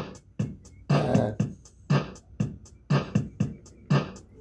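Electronic keyboard's built-in rhythm playing a steady drum-machine beat, about two drum hits a second, with a held keyboard note sounding about a second in.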